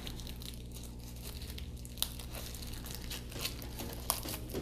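A thin paper sticker sleeve being handled and torn open by hand: crinkling and tearing paper with scattered crackles, the sharpest about two seconds in and again near the end.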